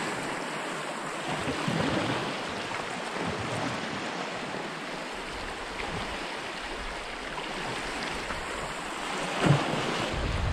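Sea waves washing against shoreline rocks, with wind on the microphone; a single short thump near the end.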